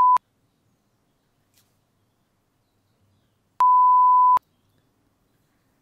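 Test-tone beeps of a bars-and-tone test signal, a pure steady tone at one pitch. The tail of one beep cuts off just after the start, then near silence, then one beep of under a second about three and a half seconds in.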